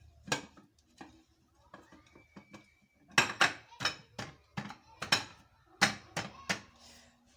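Cake pan and serving plate knocking and clattering as a freshly baked cake is turned out of its pan: a few sharp knocks, then a quick run of louder ones in the second half.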